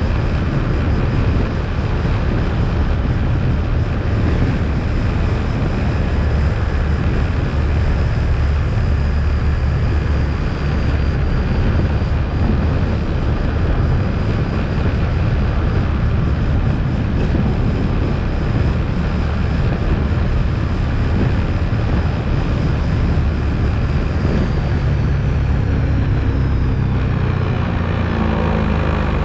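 ATV engine running steadily under way, a continuous low drone, with the engine note shifting upward near the end.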